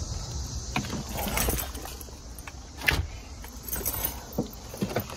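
Handling noise from a handheld phone camera carried while walking: scattered light clicks and knocks with a light jingle, over a steady hiss.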